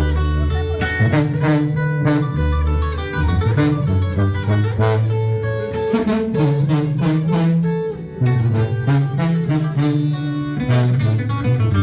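Instrumental break of a song: plucked guitars over a held, stepping tuba bass line, with no singing.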